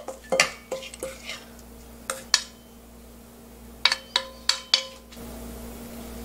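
A metal spoon clinking and scraping against a stainless steel mixing bowl as seasoned cockles are scraped out onto a plate. There are scattered light clinks, then a quick run of ringing knocks about four seconds in.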